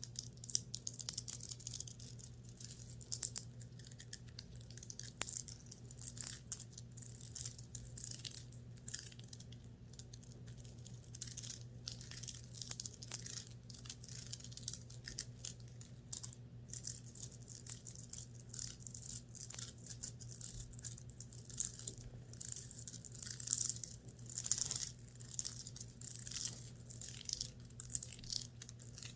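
Fingers scratching and rubbing the fabric of a clothing top in quick, irregular strokes, giving a dry scratchy rustle, over a steady low hum.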